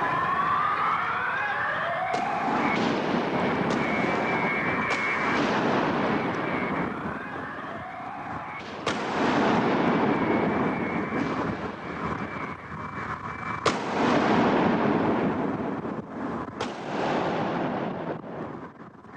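Gunshots cracking out about half a dozen times, each with an echoing tail, over a wailing emergency siren and loud street commotion.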